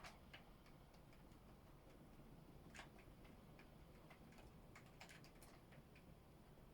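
Faint, irregular ticks of storm precipitation striking a hard surface, over a low background hiss.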